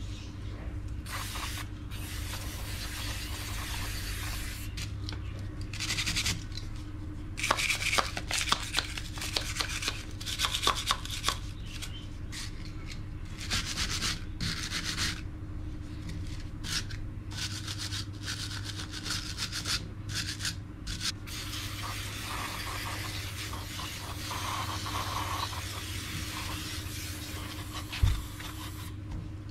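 Wire brush scrubbing a Makita angle grinder's motor housing in quick, irregular scratchy strokes, cleaning out dust and sand. Later the scrubbing gives way to a steady spray hiss from an aerosol cleaner can, with a short knock near the end.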